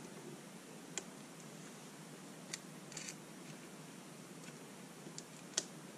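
A few faint, scattered clicks of small nuts and parts being handled as nuts are threaded by hand onto M3 machine screws, over quiet room tone.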